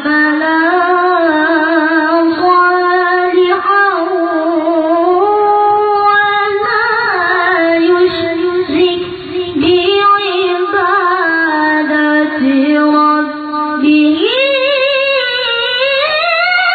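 A child reciting the Qur'an in the melodic tilawah style: one voice holding long, ornamented notes with a wavering vibrato, stepping up to a higher pitch near the end.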